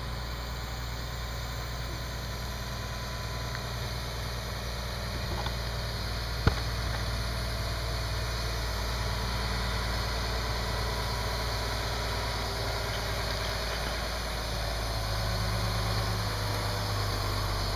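Mobile crane's diesel engine running steadily under load as it swings a slung module, the drone growing a little louder and lower near the end. One sharp knock about six and a half seconds in.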